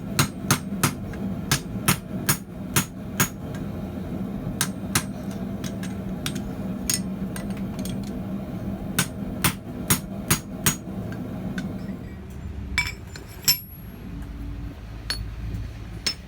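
Hand hammer striking steel on an anvil in irregular runs of ringing blows, with a steady low hum behind. The hum stops about twelve seconds in, and a few lighter metal clinks follow.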